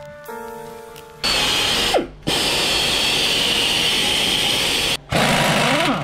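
A short stretch of music, then a power tool runs loudly in three stretches, stopping briefly twice, with a falling whine as it slows at the first stop.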